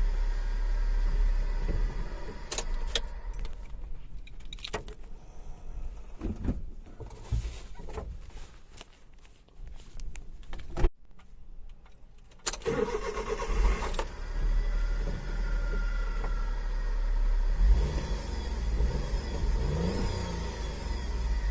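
Suzuki Carry DA63T kei truck's 660 cc three-cylinder engine running with a steady metallic whine ("ween"), as if metal were rubbing; the owner suspects the alternator or the water pump. A little past the middle it drops to a quieter stretch with a sharp click, then runs steadily again.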